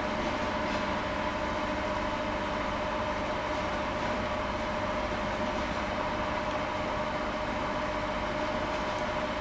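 A steady mechanical hum with a constant high whine, unchanging in loudness.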